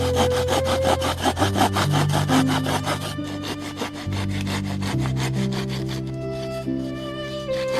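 A saw cutting through wood in quick, even strokes, over soft background music with held low notes.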